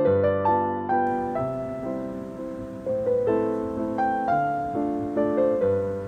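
Background piano music: a gentle melody of struck notes, each fading away, over low bass notes.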